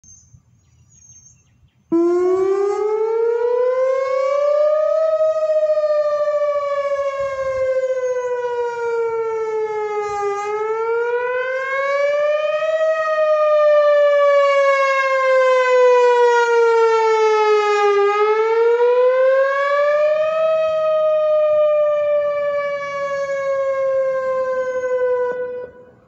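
Whelen Vortex R4 electronic outdoor warning siren sounding its wail signal in a routine weekly test. It comes on suddenly about two seconds in, and its pitch rises and falls slowly three times before it cuts off near the end.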